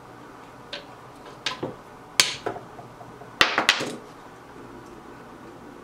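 A scattering of sharp clicks and knocks from tools and parts being handled at a workbench, bunched in the middle, with the loudest about two and three and a half seconds in.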